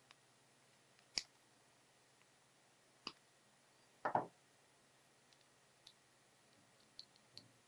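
Small Crescent diagonal cutters snipping through resistor leads: sharp clicks about a second in and three seconds in, a louder knock at about four seconds, then a few faint ticks.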